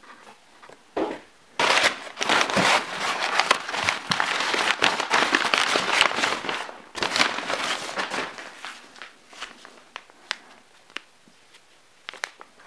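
Crumpled packing paper rustling and crinkling as hands dig through it in a cardboard box, dense for several seconds and then thinning out to occasional crinkles.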